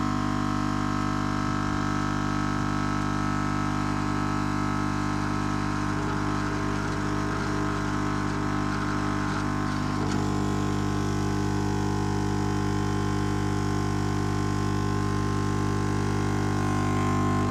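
Lukey 852D+ hot-air soldering station humming loudly and steadily and vibrating strongly, the drone of its built-in air pump: a fault that set in after more than a year out of use, with no shipping bolt left in that could explain it.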